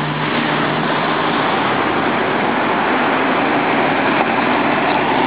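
New Flyer low-floor city bus driving past close by: a steady, loud noise of engine and tyres with a low engine hum.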